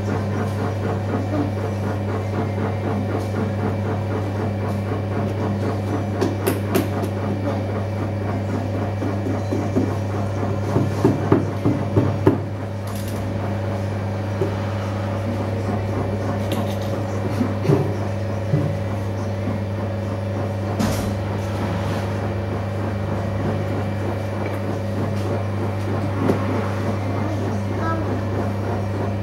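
Electric potter's wheel running with a steady low motor hum while clay is thrown on it. A short run of sharp knocks comes about ten to twelve seconds in.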